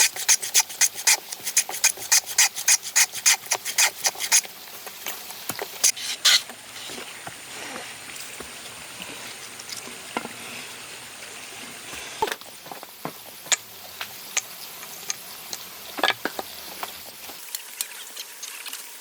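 A hand tool working wood in quick, even strokes, about three or four a second for the first four seconds or so. Then quieter scraping and rubbing with scattered light taps.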